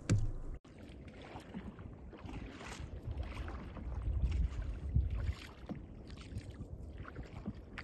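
Water splashing and lapping around an open canoe on a calm sea, with a low wind rumble on the microphone from about three to five seconds in. The sound cuts out for an instant under a second in.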